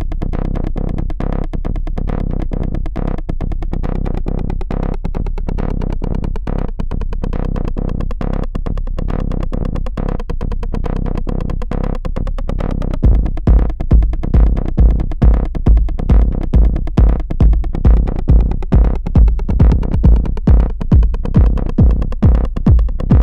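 Electronic dance track built from synthesizer and drum-machine loops, with a steady pulsing beat. About halfway through a heavy bass kick comes in, about two beats a second, and the track gets louder.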